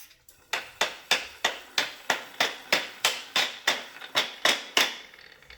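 About fourteen sharp, evenly spaced taps, roughly three a second, stopping shortly before the end: knocking on the Hoover Sprint vacuum's stuck wheels to free them after lubricating.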